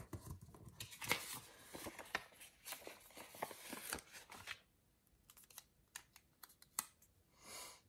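Paper sticker sheets being handled and shuffled on a tabletop, a close, dense rustling and crinkling with small clicks for the first four and a half seconds. Then quieter, with a few light ticks and a brief soft rustle near the end as a small sticker is handled.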